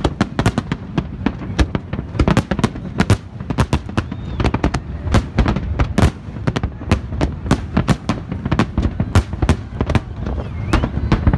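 Fireworks display: a dense, unbroken run of bangs and crackling bursts, several a second, over a steady low rumble.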